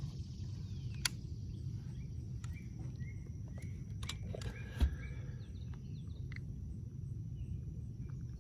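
Small birds chirping in short calls over a steady low rumble of wind on the microphone, with a sharp click about a second in and a louder knock near the middle.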